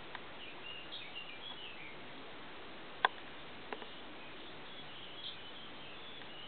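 Faint small-bird chirps over a steady hiss, with one sharp click about three seconds in and a softer one just after.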